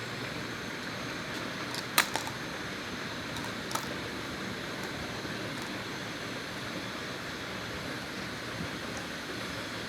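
Steady background hiss with a sharp click about two seconds in and a smaller one a little before four seconds.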